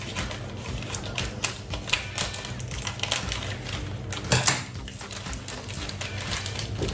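Light, irregular clicking and crackling of hot oil and salt in a frying pan. A louder crinkle a little after four seconds comes from the pasta package being picked up and handled.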